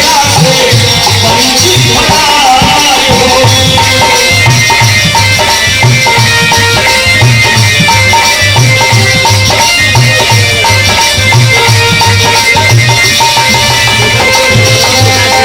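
Loud Bhojpuri dance music with a steady, regular bass drum beat and a shaker rhythm.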